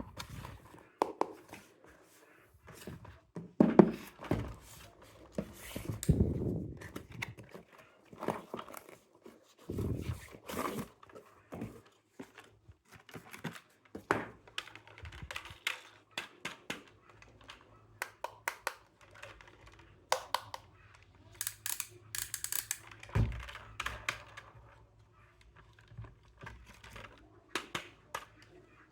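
Toy construction vehicles being handled and played with: irregular clicks, knocks and a few heavier thuds, with some rustling.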